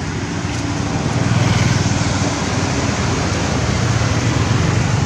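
Motor vehicle engine rumbling steadily on the road, swelling a little about a second in.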